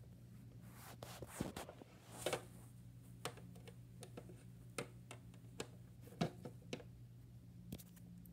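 Scattered light clicks and taps of small toys being handled against a plastic toy-house case, over a faint steady low hum.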